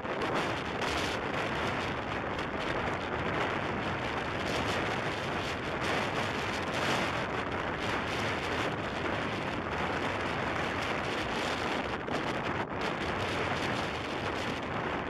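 Wind buffeting the microphone: a steady, loud rushing noise that rises and falls in gusts.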